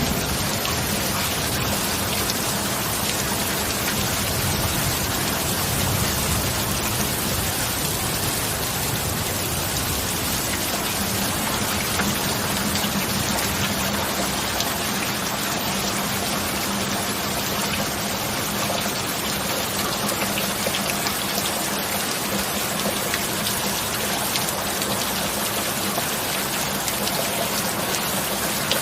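Steady rain falling: an even, unbroken hiss of dense patter with no thunderclap, and a faint low steady hum underneath.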